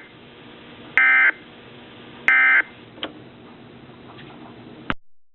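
Emergency Alert System end-of-message data bursts: short, shrill buzzing digital bursts, each about a third of a second, with one ending at the start and two more following about a second and a quarter apart, over a steady hiss. A click follows about three seconds in, and the audio cuts off after another click near the end.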